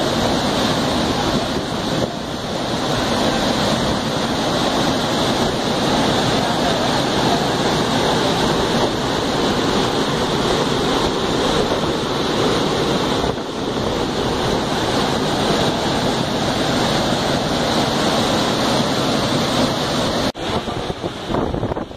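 Water rushing through an opened dam spillway gate: a loud, steady rush of falling water, broken by a sudden short drop near the end.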